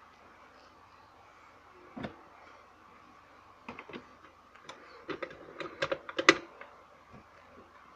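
Scattered clicks and knocks of things being handled in an open refrigerator, one about two seconds in, a few near four seconds, then a quick run of them, the loudest about six and a half seconds in.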